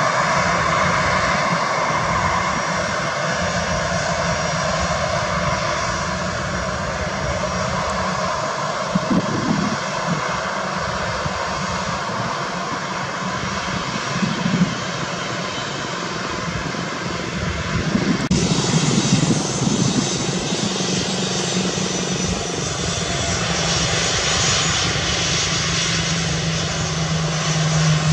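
Jet engines of Airbus A320 airliners running steadily as they move on the runway. About two-thirds of the way through, the sound changes abruptly and turns hissier, and a steady low hum comes in near the end.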